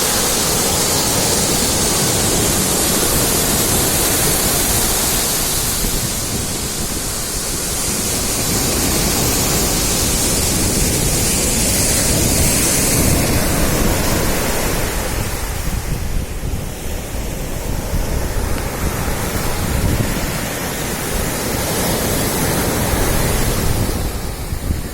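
Sea surf washing onto a beach, its hiss swelling and easing, with wind buffeting the microphone.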